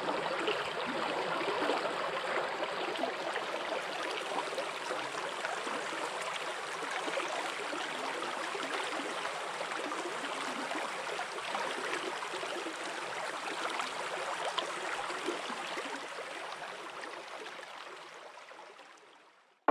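Shallow river water rushing and burbling over a rocky riffle in a steady stream, fading out over the last few seconds.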